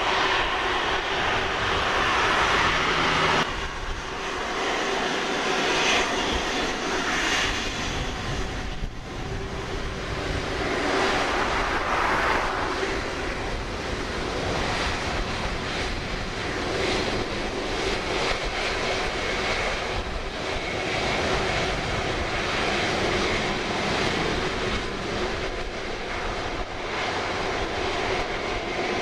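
Airbus A330-243's Rolls-Royce Trent 700 turbofan engines running at taxi power: a steady jet whine over a rumble, which changes abruptly about three and a half seconds in.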